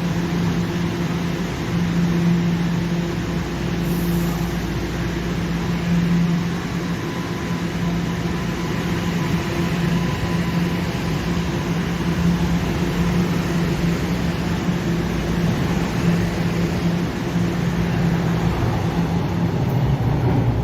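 TTC subway train running steadily: a continuous rumble with a low, steady electric hum.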